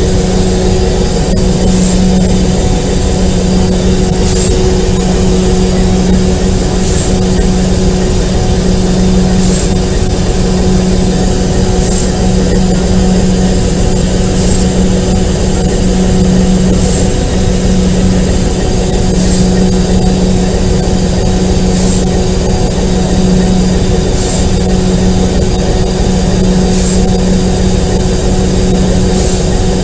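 Alco RS8 diesel-electric locomotive's engine running steadily at idle, heard close up from the walkway beside its hood. A faint high tick repeats about every two and a half seconds.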